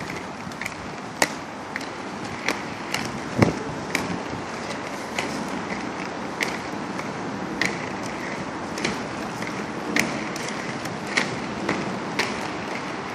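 Small hard wheels rolling steadily over pavement, a continuous rumble with a sharp click about every 0.6 seconds as the wheels cross the joints in the paving. One heavier knock about three and a half seconds in.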